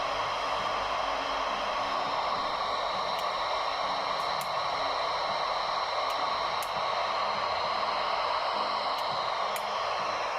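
Icom IC-02AT handheld transceiver's speaker giving a steady static hiss from its receiver.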